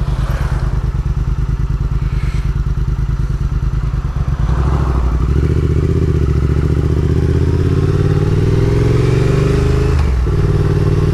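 Triumph Thruxton 1200's parallel-twin engine through Vance & Hines exhaust pipes, running at low revs, then pulling harder about five seconds in, its note rising steadily. There is a brief dip near the end at a gear change.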